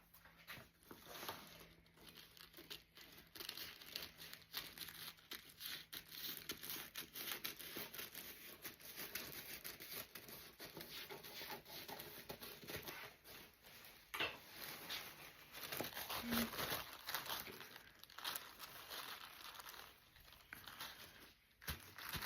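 Paper crinkling and rustling as it is handled and pressed down onto a glue-coated fan blade, with dense, irregular crackles throughout.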